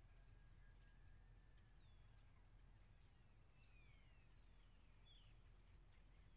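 Near silence: faint outdoor ambience with a low rumble, and a few soft, short, downward-sliding bird calls about two to five seconds in.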